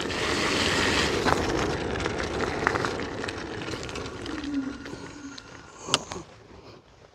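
KuKirin G1 Pro dual-motor electric off-road scooter ridden through standing water, its tyres throwing up spray against the mudguards: a rushing, splashing noise that is loudest at first and fades as the scooter slows. A brief falling whine comes near the end, then a single sharp knock about six seconds in.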